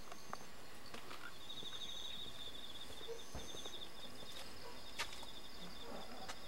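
Insects trilling outdoors: a fast pulsed trill repeated in phrases of a second or two, with a thinner, higher chirp alongside. A single sharp click comes about five seconds in.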